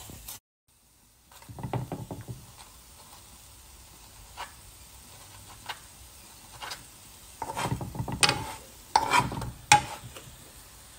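A metal spoon pressing and pushing a chapati around a non-stick frying pan, scraping over the bread and knocking against the pan. A short bout of scraping comes early, and a louder run of scrapes and sharp knocks comes in the last few seconds.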